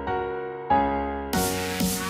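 Background music: held keyboard chords, changing to a new chord less than a second in, then an electronic dance beat starting with a rising sweep near the end.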